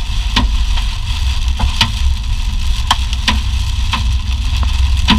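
Vehicle road noise, a steady low rumble and hiss, with about eight sharp ticks or taps at irregular intervals.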